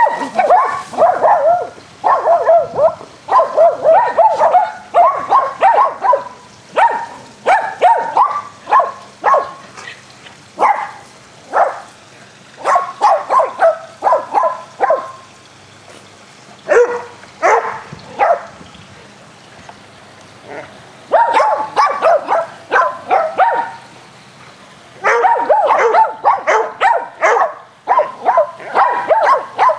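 Dogs barking excitedly in rapid volleys while they play, with brief lulls between bursts.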